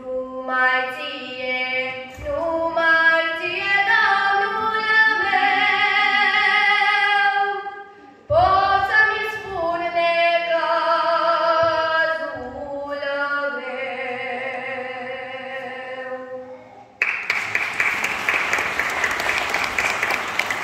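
A woman's solo voice singing an Orthodox communion hymn (priceasnă) unaccompanied, in long held and gliding phrases, with the last phrase ending about sixteen seconds in. About a second later applause breaks out and runs on.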